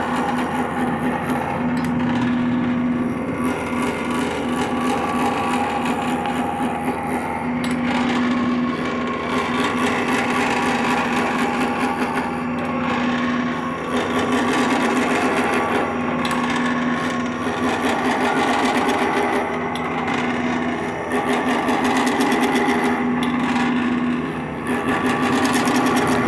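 Wood lathe running while a turning tool cuts the spinning wood: a steady motor hum under uneven scraping that swells and eases every few seconds.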